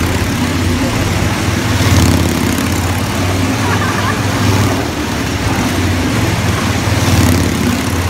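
Motorcycle engine running steadily as it circles the wall of a wooden wall-of-death drum, swelling in loudness about two seconds in and again near the end.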